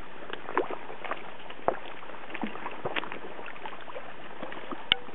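Shallow river water lapping and splashing, with scattered small irregular clicks and one sharp click near the end.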